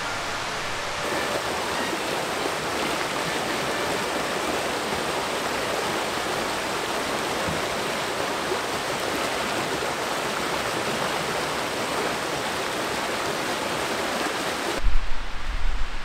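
Shallow rocky stream running, a steady rush of water. Near the end it cuts off abruptly into a low, uneven rumble.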